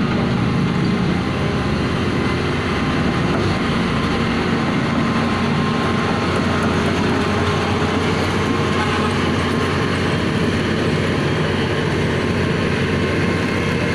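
Steady mechanical running noise from a motor or engine, with a low hum underneath that does not change.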